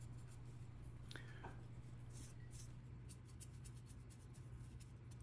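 Faint scratchy strokes of a small paintbrush dabbing weathering onto a plastic scale-model tank road wheel, over a steady low hum.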